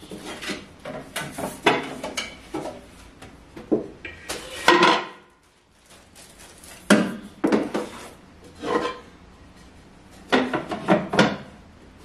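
Irregular knocks and clatter of a bread bin and its wooden lid being handled: lifted down from a shelf, opened and closed, and slid back onto the shelf, with a short quiet spell about five seconds in.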